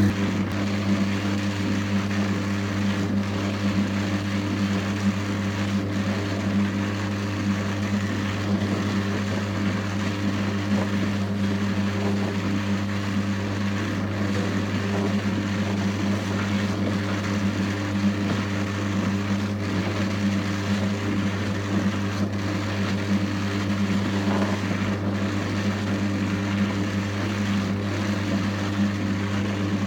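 Louet Drum Carder Electric XL running with a steady low motor hum as its drums turn, carding wool fed in by hand.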